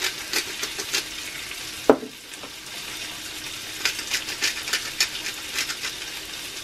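Bacon sizzling in a cast iron skillet, with frequent crackling pops of spitting grease. A single sharp knock about two seconds in.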